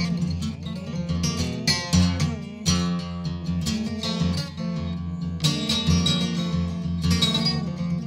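Solo acoustic guitar played hard, with irregular runs of picked notes broken by loud, sharply struck chords.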